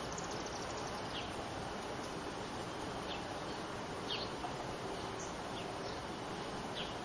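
Steady outdoor background hiss with about five short, high chirps falling in pitch, scattered a second or two apart, from small birds.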